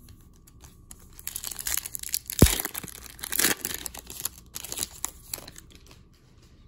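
A hockey card pack's wrapper being torn open and crinkled by hand: a run of crackling tears, the sharpest about two and a half seconds in.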